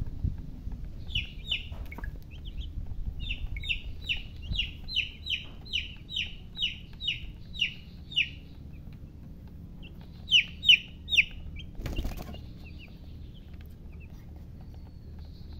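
Baby chicks peeping: a run of short, high, downward-sliding peeps about two or three a second, then a pause and three louder peeps. A brief thump follows.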